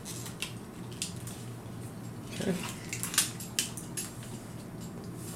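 Die-cast and hard plastic parts of a Hot Toys War Machine Mark IV 1/6-scale figure clicking and knocking as its back-mounted weapon piece is slid and fitted into place: a scatter of short, sharp clicks.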